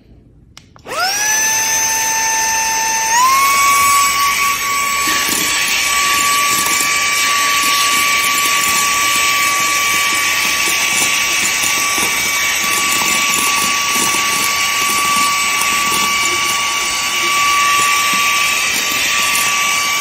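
iMMDOKIN handheld cordless vacuum cleaner switching on about a second in, its motor whine rising quickly and settling, then stepping up in pitch about three seconds in as it goes into its strong (super suction) mode. It then runs steadily, a high whine over the rush of air, as it sucks up oatmeal.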